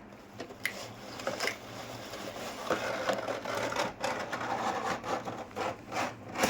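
Small toy kitchen pieces being handled: irregular clicks and taps with a stretch of scraping and rustling in the middle, and a quick cluster of sharper clicks near the end.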